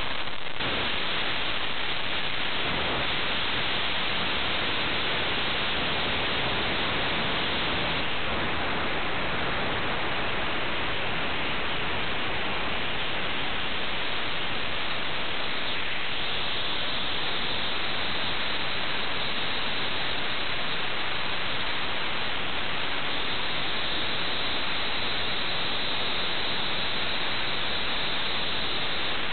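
Steady, loud static-like hiss that holds at one level throughout, with no pitch or rhythm in it.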